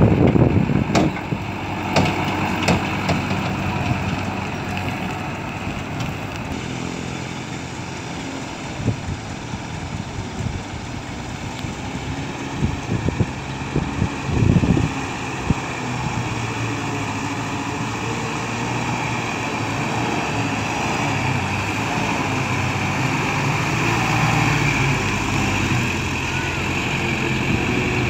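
Six-wheel diesel dump truck engines running steadily, with a few sharp knocks in the first few seconds while a truck's raised bed tips out its load of soil, and a few louder bumps around the middle.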